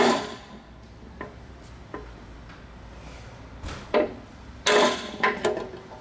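Hammer blows on a steel drift rod set in a plastic fan propeller's hub, driving out the cut-off motor shaft. Each strike has a brief metallic ring. A hard blow comes at the start, then two light taps, then four blows close together near the end.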